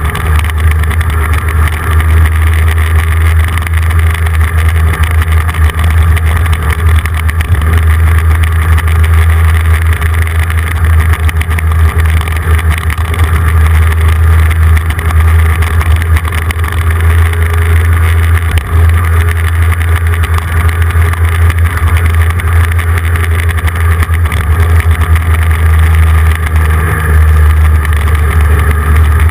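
Steady low drone of a road vehicle travelling at a constant pace, heard from a camera mounted on it, with wind rushing over the microphone.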